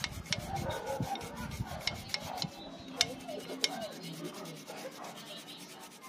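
Toothbrush bristles scrubbing the rusty steel frame tube of a motorcycle, rasping back and forth, with a few sharp clicks as the brush knocks the metal.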